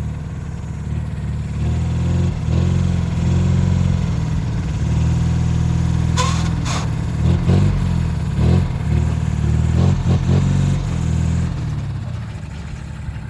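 Engine running with a steady low rumble that rises and eases slightly a few times, with several sharp knocks in the second half: the knock being chased, which is still hitting.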